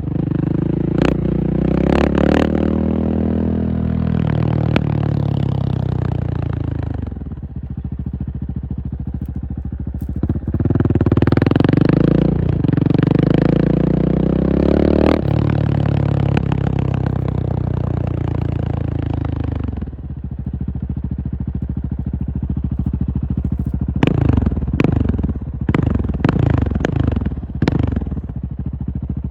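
KTM 690 SMC R's single-cylinder engine pulling hard, its pitch climbing and dropping back through gear changes, twice, with a quieter stretch between. Near the end come several quick sharp throttle blips.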